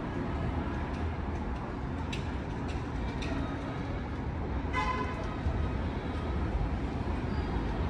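Steady low rumble of city street noise heard from an elevated subway platform, with a few faint clicks and one short pitched sound about five seconds in.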